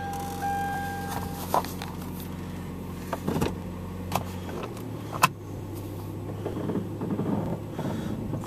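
Car engine running, heard from inside the cabin as the car creeps up to the garage, with a steady high tone that stops about a second in and a few sharp clicks.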